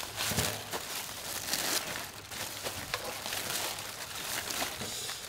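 Aluminium foil crinkling and rustling irregularly as hands tear open the foil wrapping of a clay-baked duck.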